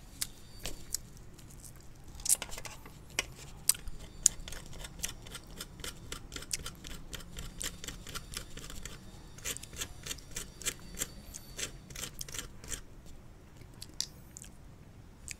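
A needle picking and scraping at a brittle dalgona (sugar and baking-soda) candy on a steel tray, making a run of small, quick, irregular clicks and ticks.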